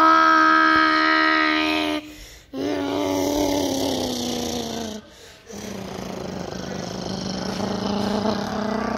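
A child's voice making drawn-out jet-engine noises for a toy airliner taking off. There are three long vocal tones with short breaks between them: the first is held, the second falls in pitch, and the third is lower, rougher and slowly rising.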